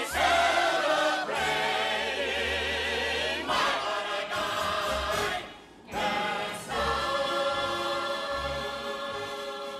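Closing bars of a show tune: a chorus of voices holds one long note with a wavering vibrato over an orchestra. The music then dips briefly, and the orchestra ends on long held chords.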